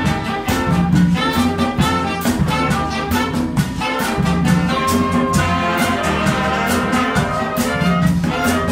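A Latin brass band playing salsa live: saxophones and other horns holding notes over congas, a drum kit and bass, with a busy, even beat of drum and cymbal strikes.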